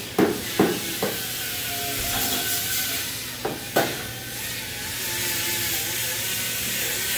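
Hammer blows on the sheet-steel lower body panel of a 1978 GMC C15 truck during rust repair: three sharp, ringing strikes in the first second, then two more about three and a half seconds in. A steady hiss runs underneath.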